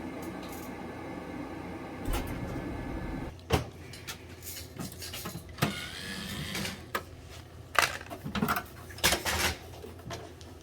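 Oil burner on a boiler running with a steady hum, which cuts off suddenly about three seconds in. Scattered metal knocks, clicks and scrapes of hands and tools working on the unit follow.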